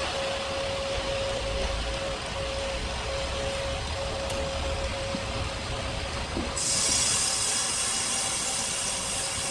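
Sawmill machinery running: a steady mechanical noise with a constant hum. About two-thirds of the way through it turns abruptly to a brighter hiss.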